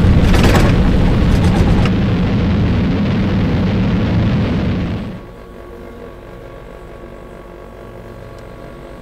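Cartoon rocket-engine sound effect: a loud rumble with a burst of crackling at the start, cutting off suddenly about five seconds in as the rocket touches down. A quieter steady hum remains after it.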